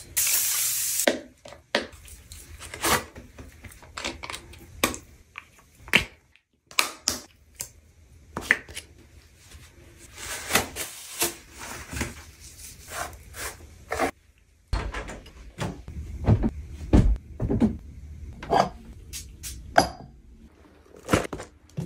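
A thermal-water facial mist spray can hisses for about a second at the start, followed by a long string of small taps, clicks, knocks and rustles from close-up handling: hair rollers being worked out of the hair and bottles picked up and set down on a counter.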